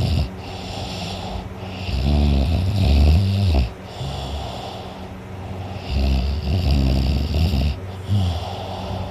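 A teenage boy snoring loudly in deep sleep: two long, low-pitched snores about four seconds apart, then a short one near the end.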